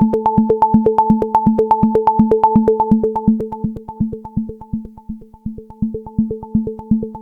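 Waldorf Iridium synthesizer playing a preset: a fast, even pulse of short plucky notes repeated on one pitch, which grows quieter from about three seconds in.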